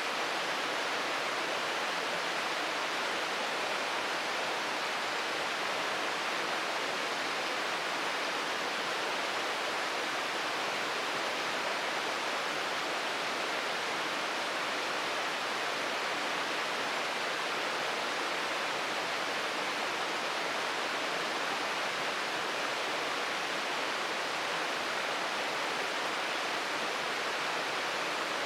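Shirogane Falls waterfall pouring, a steady, even rush of falling water with no single splashes or changes standing out.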